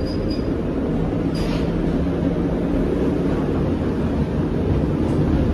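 Passenger train running steadily on rails, heard from inside the car as a continuous low rumble. There is a brief high squeak near the start and a short hiss about a second and a half in.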